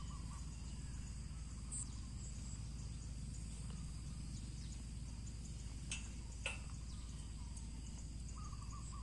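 Rural farmyard ambience: a steady low rumble and hiss, faint bird chirps near the start and again near the end, and two short snaps about six seconds in.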